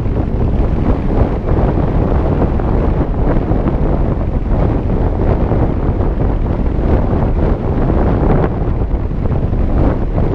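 Airflow of paragliding flight buffeting a camera microphone: a steady, loud rush of wind noise with a deep rumble.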